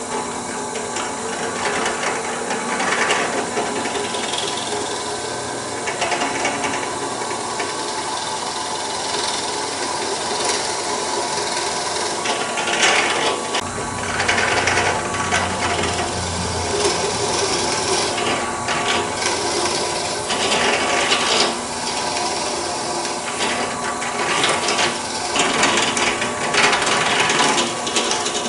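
Small benchtop drill press running, its 5/8-inch Forstner bit boring into a wooden mast. The cutting noise rises in repeated bouts as the bit is fed down into the wood.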